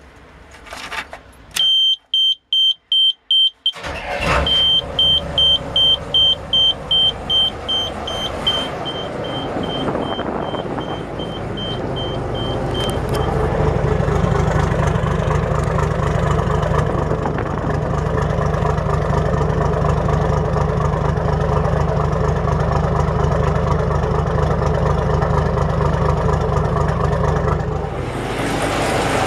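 Yamaha DY34 boat's inboard engine being started at the helm: a warning buzzer beeps about three times a second, a sharp click comes about four seconds in, and the engine catches and settles into a steady idle while the beeping fades out.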